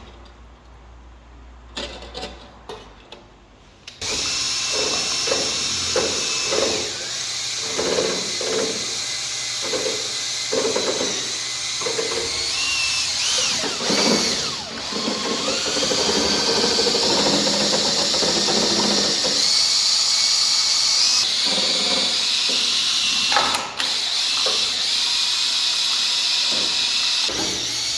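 Electric power drill starting about four seconds in and then running continuously with a steady high motor whine, its load rising and falling in a rough rhythm.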